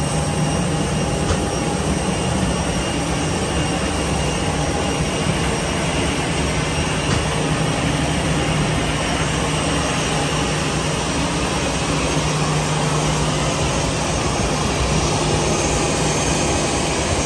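A jet airliner running at the stand: a steady, unbroken noise with a low hum and faint high whining tones.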